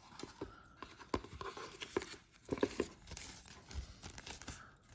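Handling of a pen's presentation box and its packaging: scattered light knocks, scrapes and rustles, with a couple of slightly louder taps about two and a half seconds in.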